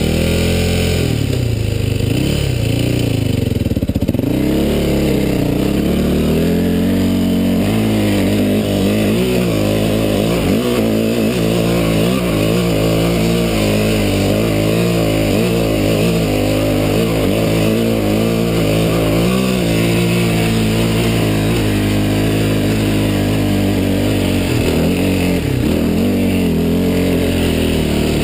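Yamaha WR426F dirt bike's four-stroke single-cylinder engine pulling up a dirt trail climb. Its pitch keeps rising and falling with the throttle.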